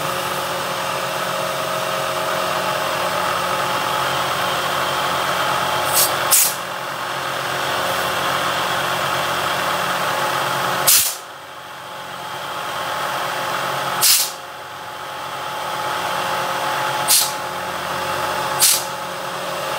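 Milling machine spindle driving a 3/8-inch carbide roughing end mill in a steady cut, helically ramping down into a pocket in aluminium plate at an aggressive ramp rate. Several short, sharp hisses of spray aimed at the cutter break in; after two of them, about 11 and 14 seconds in, the cutting sound drops and then slowly builds again.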